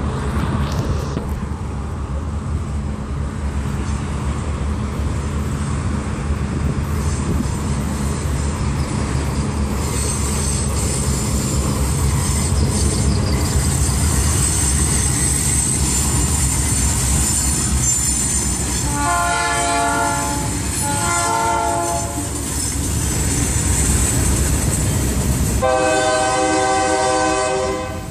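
Diesel-hauled Kansas City Southern freight train passing close by: a steady low rumble of locomotive engines and wheels, with a high whine from steel wheels on the rail building as it goes by. The locomotive air horn sounds two short blasts about two-thirds of the way through, then a long blast near the end.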